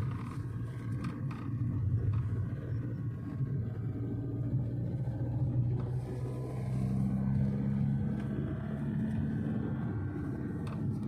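A vehicle's engine running steadily, a low rumble with a hum; a slightly higher hum joins about six and a half seconds in.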